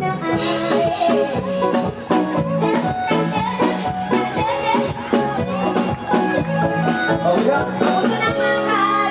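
Live Isan band music: an instrumental passage with a steady beat under a gliding lead melody.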